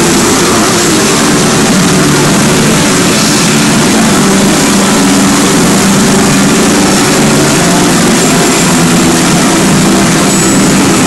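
Loud, steady din of a pachinko parlor: many machines running at once, with steel balls rattling and the machines' electronic sound effects mixed into one unbroken roar.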